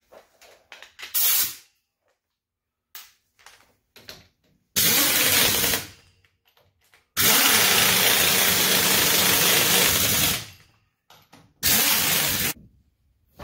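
Power wrench run in several bursts on a car's front wheel lug nuts, the longest about three seconds in the middle, with quiet gaps between.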